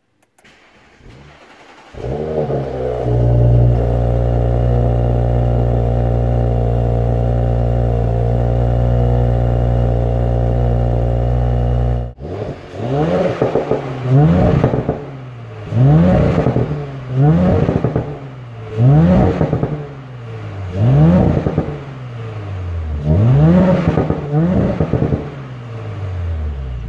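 Audi S5's turbocharged V6 cold-starting: it catches about two seconds in with a short flare, then holds a steady high cold idle. Then it is revved at the exhaust in a series of about seven quick blips, each rising and falling back.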